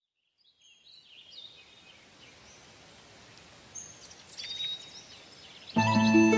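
Faint steady hiss with a few short, high chirps, then background music with held synthesizer-like tones comes in suddenly and loud near the end.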